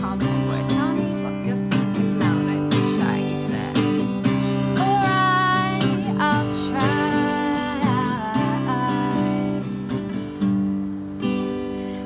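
A woman singing while playing an acoustic guitar; the guitar runs throughout and her voice holds long notes in the middle.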